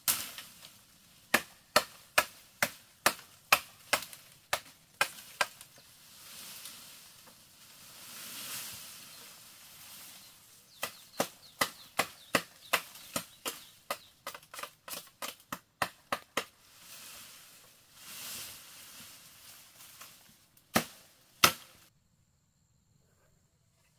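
A blade chopping into bamboo: runs of sharp chops, about two a second at first and then a faster run of about three a second in the middle, with stretches of rustling leaves between the runs. Two last chops come near the end before the sound drops away.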